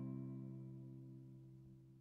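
Background music: a strummed acoustic guitar chord ringing out and slowly fading away.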